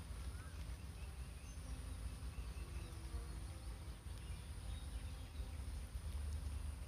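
Quiet stirring of grated coconut through simmering jaggery syrup with a wooden spatula in a nonstick pan, over a low steady hum and a faint high steady whine.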